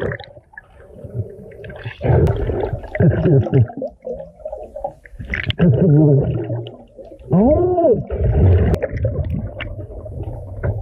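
Underwater gurgling and bubbling heard through a submerged camera, with muffled low rumbles and pitched sounds that glide up and then down, strongest about three seconds in and again around seven to eight seconds in.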